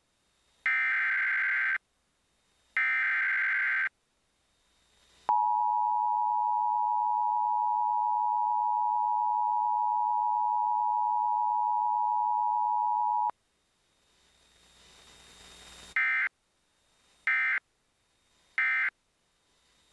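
Emergency Alert System broadcast tones signalling a tornado warning. The last two of the header data bursts come about a second apart, then the two-tone attention signal (853 and 960 Hz) holds steady for about eight seconds. After it, a rising hiss leads into three short data bursts near the end.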